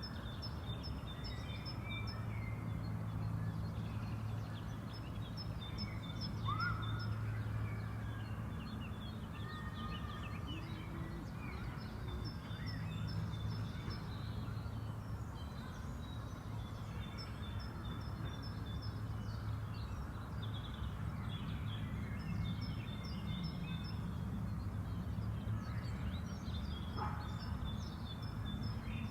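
Spring park ambience: several birds singing, with rapid series of high chirps and scattered lower whistled calls, over a steady low background hum.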